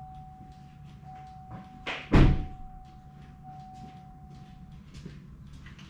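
The 2015 GMC Yukon's turn-signal flasher ticking faintly and evenly, about three ticks a second, with a steady electronic tone that stops about five seconds in. A single heavy slam comes about two seconds in and is the loudest sound. The signal now flashing normally shows that the new right front headlight assembly has cleared the B260E turn-signal fault.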